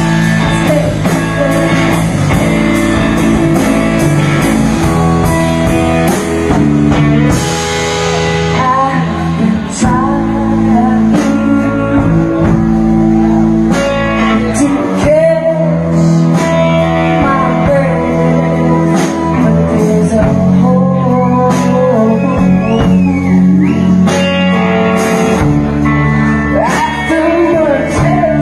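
A live band playing a song: a woman singing lead over electric guitar and a drum kit.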